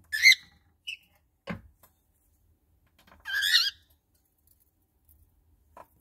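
A cockatiel calling: a loud, short warbling chirp, a brief peep a second later, then a longer wavering warble about three seconds in. A light knock comes between them, about a second and a half in.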